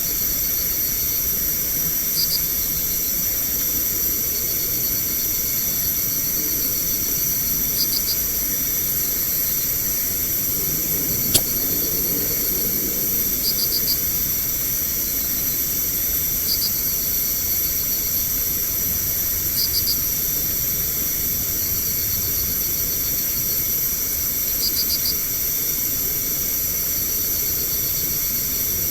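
Night insects trilling steadily over heavy recording hiss, with a short pulsed chirp repeating every two to three seconds. A single sharp click comes about eleven seconds in.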